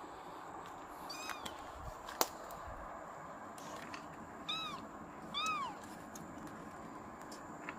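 Kittens mewing: three short, high, rising-and-falling mews, a faint one after about a second and two clearer ones a second apart past the middle. One sharp click comes between them.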